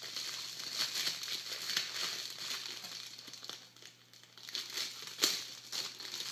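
Plastic wrapping being crinkled and pulled off by hand in irregular bursts, with a brief pause about four seconds in.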